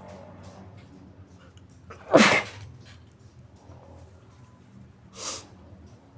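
A person gives one big, muffled sneeze about two seconds in. A second, shorter and quieter nasal sound follows near the end.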